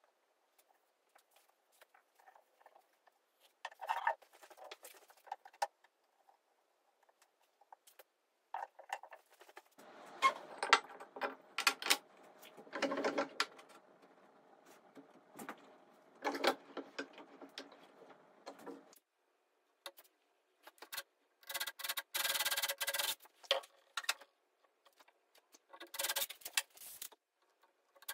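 A handheld power drill running in short bursts of a second or two, twice in the last third, working into an oak frame, among scattered knocks and clatter of wood and tools being handled on a wooden workbench.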